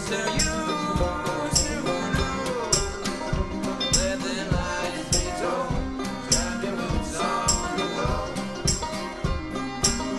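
Acoustic folk string band playing: two acoustic guitars and a banjo strumming and picking over a steady beat.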